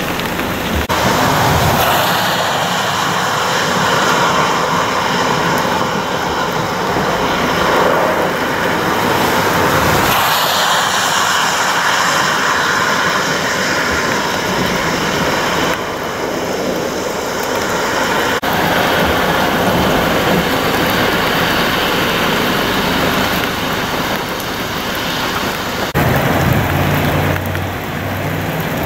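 Cars driving through standing floodwater on a wet road, their tyres hissing and throwing up spray over steady rain, with the sound changing abruptly several times. Near the end a semi truck's engine runs with a low, steady hum as it rolls through a flooded street.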